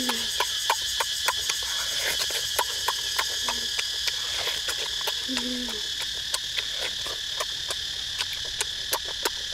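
Steady high-pitched drone of forest insects with frequent sharp clicks, and a boy's short hummed "mmm" of enjoyment while eating, heard a couple of times and longest about five seconds in.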